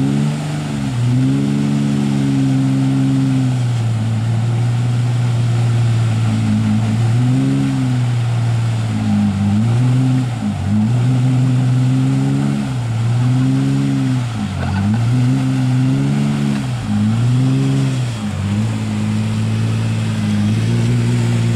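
Ford Ranger pickup's engine revving over and over, its pitch climbing and falling back about ten times, as the truck sits stuck in deep creek mud with its wheels spinning.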